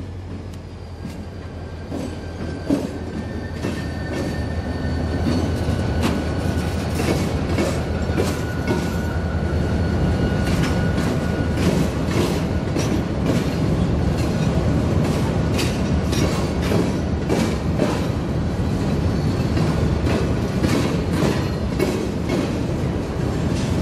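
Freight train hauled by two diesel locomotives, an RJ Corman GP16 in the lead, approaching: a steady diesel rumble growing louder over the first several seconds, with wheels clicking over rail joints.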